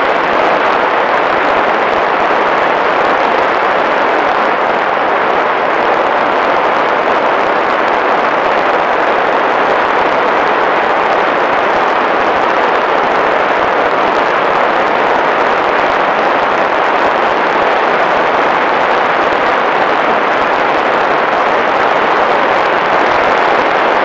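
Steady, loud rush of airflow and propeller noise picked up by a camera riding on a small fixed-wing drone in cruise flight, unchanging throughout with no distinct motor whine.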